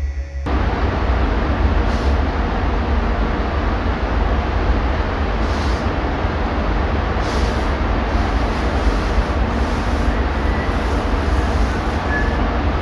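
Spray booth ventilation fans running, a steady loud rush of air with a deep rumble that starts abruptly about half a second in. A few brief crinkles of plastic masking sheeting are handled over it.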